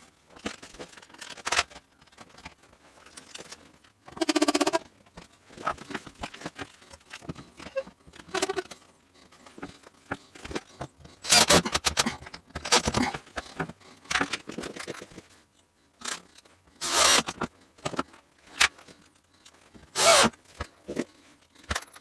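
Handling noises of fitting small braces under a plywood deck: irregular scrapes, rustles, clicks and knocks, the loudest scrapes coming about halfway through and again near the end.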